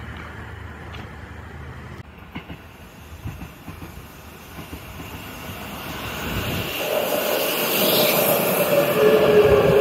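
Seibu Railway electric commuter train approaching along the platform and running past close by. Its noise grows steadily louder from about halfway, with steady whining tones over the running noise in the last few seconds.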